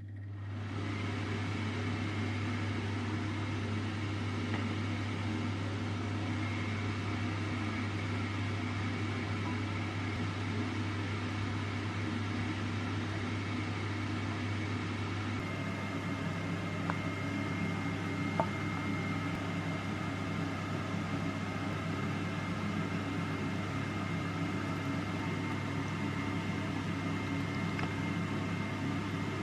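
Steady electric motor hum from a kitchen appliance, switching on at the start, with a faint high whine over a strong low hum and a couple of light clicks partway through.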